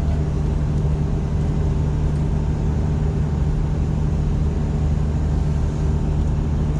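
Case IH 7088 combine's diesel engine running at a steady speed, a constant low hum with no change in pitch.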